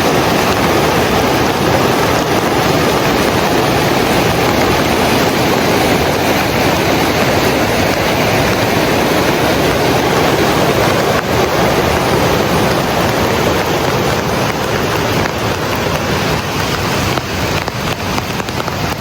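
Rushing water: a loud, steady rush with no breaks.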